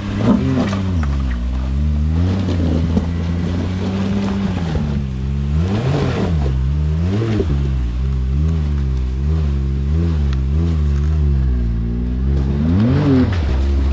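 Side-by-side UTV engine working in repeated throttle blips while rock crawling, its pitch rising and falling again and again. There is a sharp rev about six seconds in, quicker blips after that, and another hard rev near the end.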